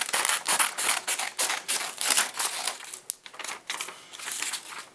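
Scissors cutting through a sheet of paper in a quick run of snips, about four a second, stopping near the end.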